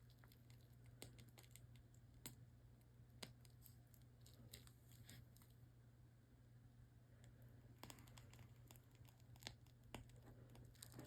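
Near silence: a steady low hum with faint, scattered clicks and crinkles.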